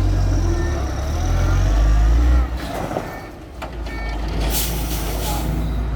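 Sany concrete mixer truck's diesel engine running loudly under load, then dropping off sharply about two and a half seconds in as the truck pulls up in a brake test. Near the end comes a short hiss of air from the air brakes.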